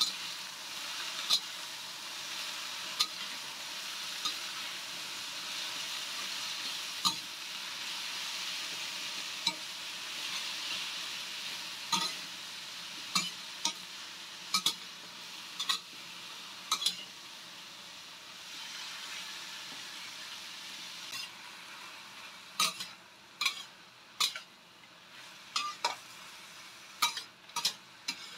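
Sliced bitter melon sizzling in oil in a stainless-steel wok as a metal spatula stirs it, scraping and clinking against the pan. The sizzle is strongest in the first half and dies down, while the sharp spatula strikes come more often in the second half.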